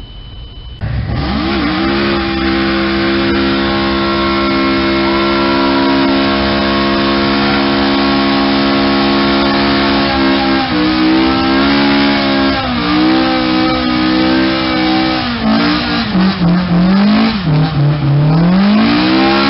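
A car engine revving up suddenly and held at high revs for several seconds, then its pitch wavering, dipping and rising again near the end.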